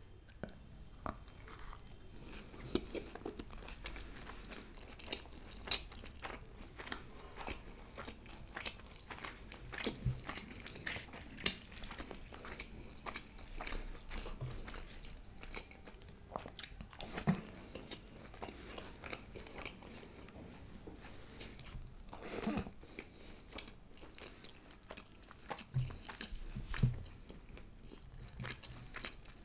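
Close-miked chewing of puri, a deep-fried bread, with mutton curry: an irregular run of short wet mouth clicks, with a few louder bites scattered through.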